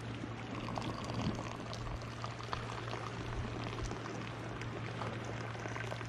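Moroccan tea poured in a thin stream from a metal teapot into a small glass, the pot raised higher during the pour so the stream falls from a height and splashes into the glass.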